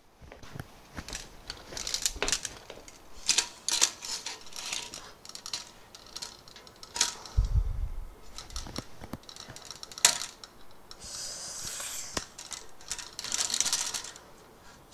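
Handling noise of metal bar dispensers being fitted onto an aluminium V-slot rail frame: irregular clicks, knocks and light rattles. There is a dull bump about seven and a half seconds in, a sharp knock about ten seconds in, and brief scraping near the end.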